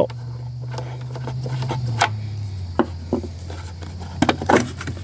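Scattered clicks and knocks as the side cover of a Harbor Freight 1x30 belt sander is worked loose and taken off for a belt change, with a cluster of clicks near the end. A steady low hum runs underneath and drops slightly in pitch about two seconds in.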